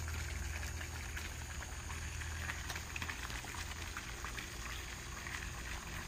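Hotpoint microwave oven running with a steady low hum, while the iPhone 6 cooking inside crackles with scattered small snaps as it burns and sparks.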